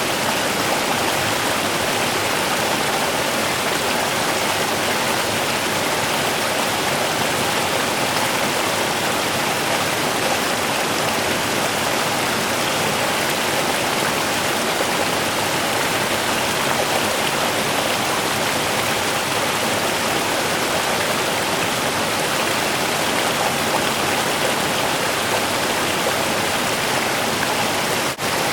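Small river running steadily, an even rushing of flowing water. There is a very brief dropout just before the end.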